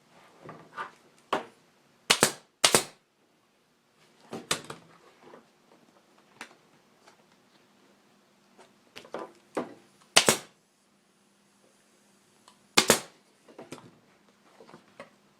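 Staple gun firing staples through the seat cover into a motorcycle seat pan: several sharp single shots at uneven intervals, with quieter handling of the material in between.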